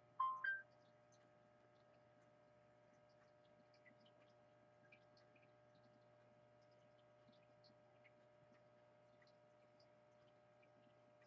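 Near silence over a steady low electrical hum, broken a fraction of a second in by a short two-note electronic beep stepping up in pitch.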